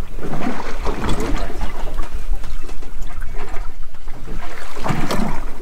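Sea water slapping and sloshing against the hull of a small drifting boat, with wind rumbling on the microphone.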